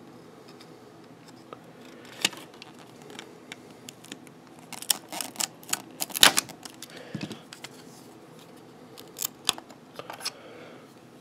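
Pocketknife blade prying and scraping at the plastic-and-metal casing of a memory card, giving scattered clicks and small snaps, busiest and loudest around six seconds in, with a few more near the end, as the glued-in part is worked loose.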